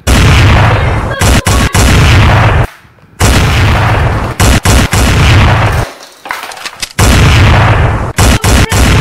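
Very loud explosion sound effects played one after another: three long rumbling blasts, each cutting off abruptly, with a few sharp cracks between them.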